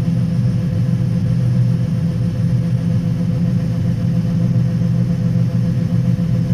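Farm machine engine running steadily: a constant low drone with a thin, steady higher hum above it, holding one speed throughout.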